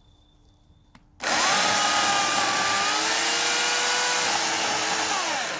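Portland 14-inch electric chainsaw with a 9-amp motor, starting about a second in and running loudly for about four seconds with a steady motor whine over the chain's hiss. Its pitch falls as it winds down near the end.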